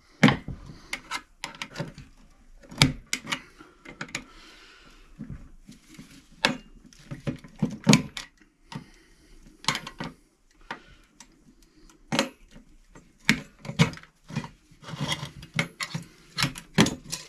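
Irregular sharp metal clanks and knocks as a microwave magnetron's steel housing is struck and pried apart with hand tools to free its magnets.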